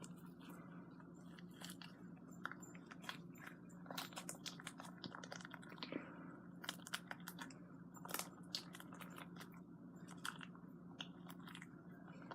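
Hands kneading an old shaving-cream slime to work in a dollop of moisturizing cream, making faint, irregular sticky clicks and crackles over a steady low hum.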